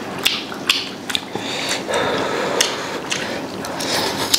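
A person eating hot food close to the microphone: irregular sharp clicks and smacks of chewing, with a short slurp about two seconds in and another near the end.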